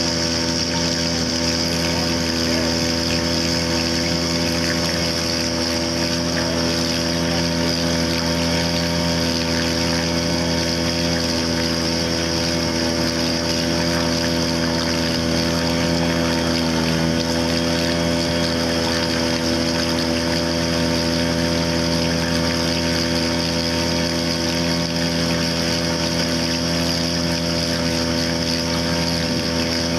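Gamefisher 3.0 hp two-stroke outboard motor running steadily under way, its pitch dipping briefly about halfway through.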